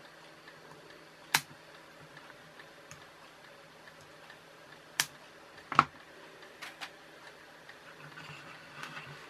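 A few sharp, isolated clicks of flush side cutters snipping the leads of components on a small circuit board, the loudest about six seconds in.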